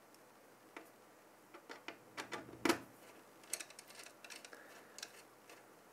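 Scattered small clicks and taps as a CPU cooler's mounting brackets are handled and set into place on the spacers around the processor socket. The loudest click comes a little under three seconds in.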